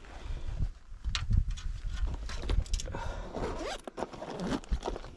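Irregular rustling, scraping and clicking over a low rumble: close handling noise and movement on rocks.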